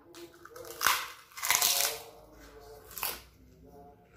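Crisp kerupuk cracker being bitten and crunched in the mouth: a sharp bite about a second in, a loud stretch of crunching around a second and a half in, and another crunch near three seconds.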